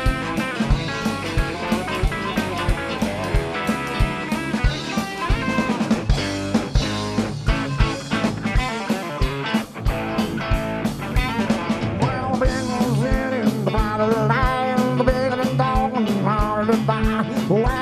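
Southern rock band playing live: electric guitar and fiddle over a drum kit keeping a steady beat.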